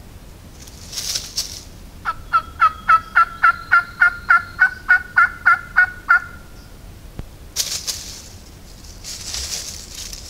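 Turkey yelping: a long series of about fourteen evenly spaced yelps, each dropping in pitch, over about four seconds, followed by rustling in dry leaves.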